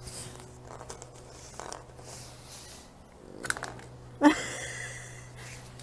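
French bulldog giving one sudden short vocal sound about four seconds in, dropping quickly in pitch, followed by about a second of noisy breath, over a low steady hum.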